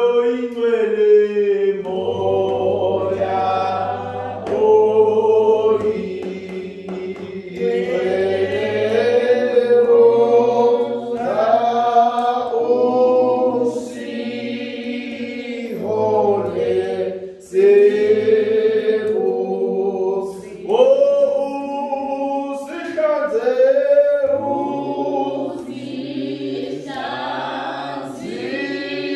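Church congregation singing a hymn together, unaccompanied, in held, slowly moving notes.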